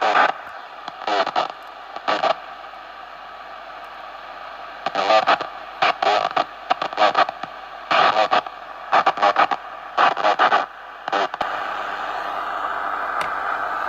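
Tecsun receiver's speaker playing the long-wave signal from a SIM-card-and-coil transmitter: short bursts of distorted sound over a background of static hiss. About two-thirds of the way in, the bursts stop and only a steady hiss remains.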